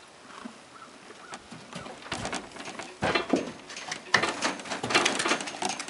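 A filly's hooves stepping and shuffling on the bedded floor of a horse trailer. It is a scatter of knocks and rustles that gets busier and louder from about two seconds in, as she moves toward the door.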